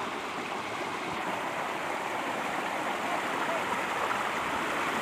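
Floodwater rushing through and over a broken bamboo footbridge: a steady gushing that grows slightly louder.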